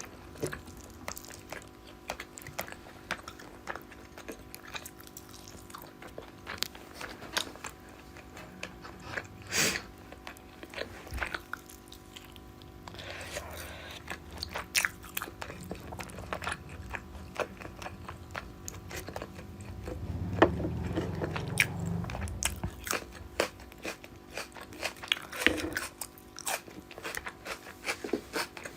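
Close-miked eating sounds of a person chewing rice, fish curry and fried sides: crunching bites and chewing with many small wet clicks.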